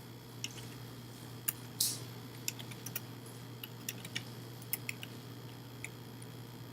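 Computer keyboard keys tapped sparsely and unevenly, about ten faint clicks, over a steady low electrical hum.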